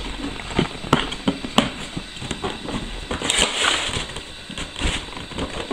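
Cardboard retail box being handled and opened by hand: scattered light taps and knocks, with a brief scraping rustle of cardboard a little over three seconds in.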